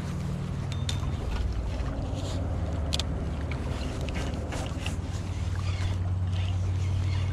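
A low, steady engine drone that grows stronger near the end, with scattered light clicks and taps over it.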